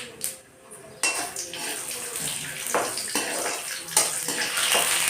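Water running from a tap, switching on about a second in, with dishes and utensils clinking.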